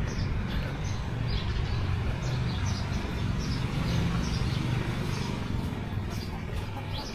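Small birds chirping over and over, short high chirps about one to two a second, over a steady low rumble.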